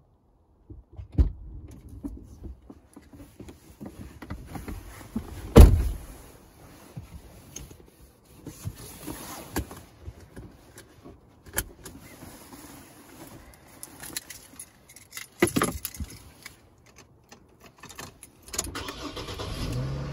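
Car keys jangling and scattered knocks and rustles as a person settles into a car's driver's seat and brings the key to the ignition, with a loud thump about five and a half seconds in.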